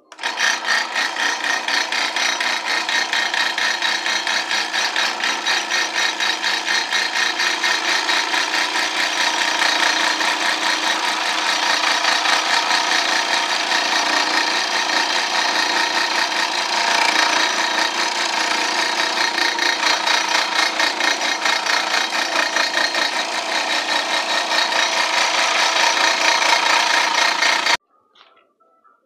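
Benchtop scroll saw switched on and cutting through a wooden board, the reciprocating blade's rapid even strokes and the motor running steadily. The sound cuts off suddenly near the end.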